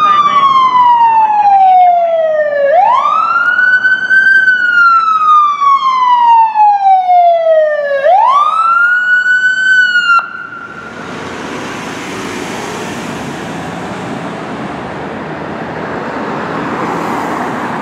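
Ambulance siren wailing: each cycle jumps up quickly and then falls slowly over about five seconds. It holds for a moment and cuts off suddenly about ten seconds in, leaving a steady, quieter rush of engine and road noise as the ambulance pulls away.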